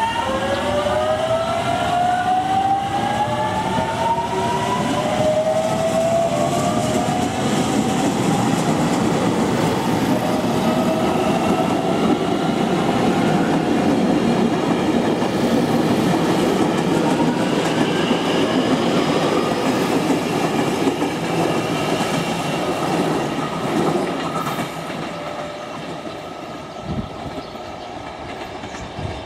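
JR Kyushu 813 series electric train pulling away, its traction motors giving a whine that rises in pitch over the first few seconds. Then comes the steady clatter of its wheels over the rail joints as the cars pass close by, growing quieter near the end.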